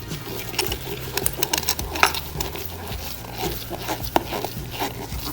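Irregular clicks and small taps as a 6-32 machine screw is turned into an undersized hole in the resin-and-plastic door panel, cutting its own threads for a tight, slop-free fit.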